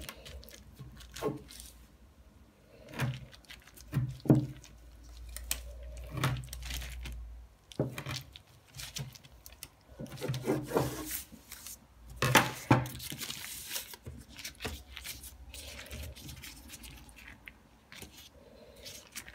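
A rolling pin knocking and rolling over a log of filled puff pastry on baking paper, with the paper rustling and crinkling under the hands. There is a string of separate knocks and rubs, and a longer rustle about twelve seconds in.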